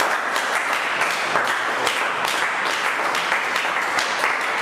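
A congregation applauding, many hands clapping at once.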